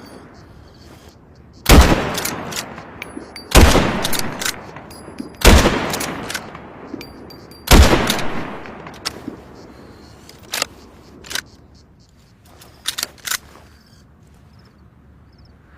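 Remington 700 BDL bolt-action rifle fired four times, about two seconds apart, each shot ringing out with an echoing tail. A few smaller sharp clicks and knocks follow a few seconds later.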